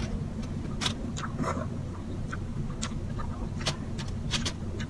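A person chewing food with irregular wet mouth clicks and lip smacks, over a steady low hum.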